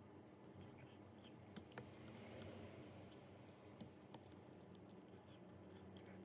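Near silence: a low steady hum with a handful of faint, scattered small clicks and ticks.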